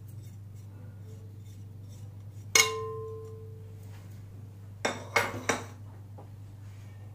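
Ceramic crockery clinking. A small ceramic plate strikes a porcelain bowl once sharply about two and a half seconds in and rings briefly as it fades. Three or four shorter clinks follow around five seconds in.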